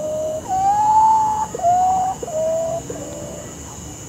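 Potoo singing: a series of mournful whistled notes, each a little lower than the last, starting over on a longer, higher note about half a second in and stepping down again before fading.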